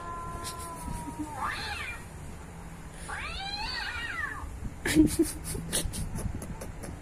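Recorded cat meows played back from a YouTube cat-sound clip: a long held meow that fades out about a second in, then several shorter calls that rise and fall in pitch. About five seconds in comes a knock and a quick run of sharp clicks, the loudest moment.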